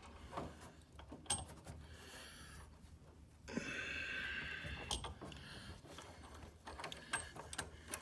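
Faint clicks and taps of brass refrigerant fittings being handled as the piston distributor is lined up with the liquid line. A breathy exhale close to the microphone starts about three and a half seconds in and lasts a second or two.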